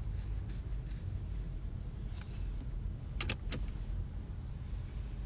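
Small plastic clicks from the overhead console's sunglasses holder being handled, two sharp ones close together about three seconds in, over a low steady hum inside the car's cabin.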